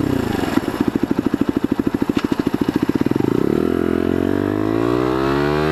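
Bullit Hero 125's single-cylinder engine dropping to low revs and chugging with a rapid, even pulse, then revving up steadily from about three and a half seconds in as the bike pulls away.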